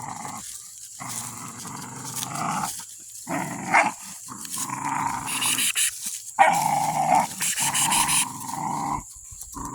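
American bully puppies growling as they tug and wrestle over a stick, a series of rough growls each about a second long with short breaks between them.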